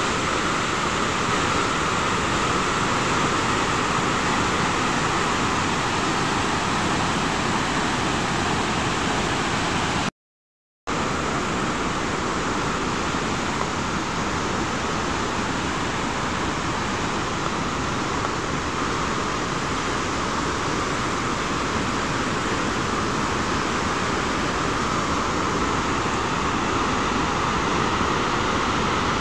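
Dassam Falls and the rapids below it in strong flow: a steady, loud rush of water, broken by a gap of silence under a second long about ten seconds in.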